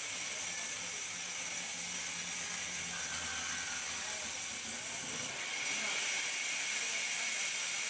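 Large sawmill band saw running steadily: a constant high hiss with a thin whine. It changes abruptly about five seconds in, the low rumble dropping away and the whine growing brighter.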